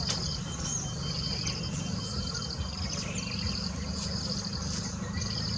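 A stopped bus's engine idling with a steady low rumble, while high, buzzy chirping trills repeat about once a second.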